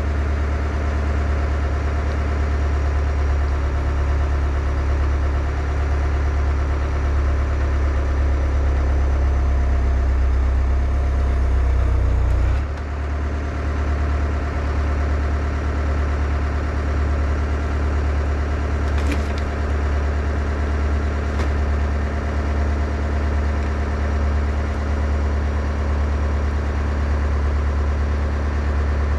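Skid steer engine running steadily while the log is being rolled, with a shift in engine speed about twelve seconds in.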